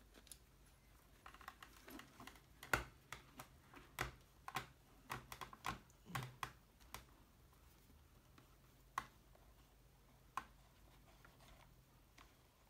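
Irregular clicks and taps of hands pressing a motorcycle helmet's padded liner and cheek pad into their plastic snap fittings. They come thickly over the first several seconds, with the sharpest one about three seconds in, then only a few scattered clicks.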